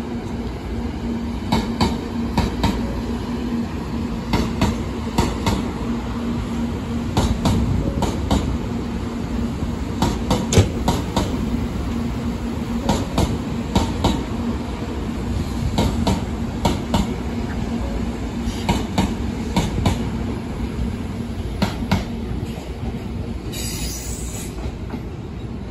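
700 series Shinkansen (Hikari Rail Star) train rolling past over the tracks, its wheels clacking irregularly over rail joints and points above a steady rumble and hum. A short hiss comes near the end.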